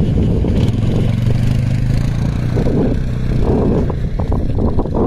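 Quad bike (ATV) engine running with a steady drone, with a few short clicks near the end.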